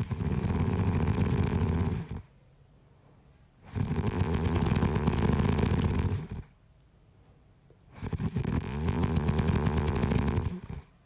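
A man snoring: three long snores about four seconds apart, each lasting about two and a half seconds with a fluttering rattle, with quiet pauses between breaths.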